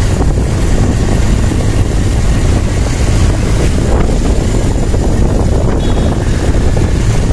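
Steady wind rush on the microphone of a moving motorcycle, with the bike's engine running underneath.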